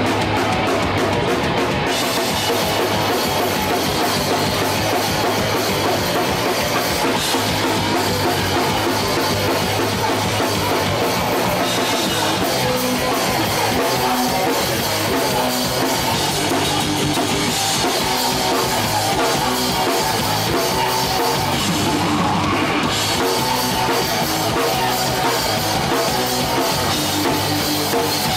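Hardcore punk band playing live: distorted electric guitar, bass and a pounding drum kit, loud and unbroken, picked up by a Hi-8 camcorder's built-in microphone.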